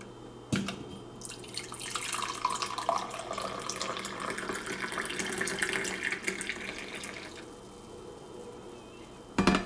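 Coffee pouring from a Black + Decker thermal carafe into a cup in a steady stream for about six seconds, after a click near the start. A sharp knock comes near the end.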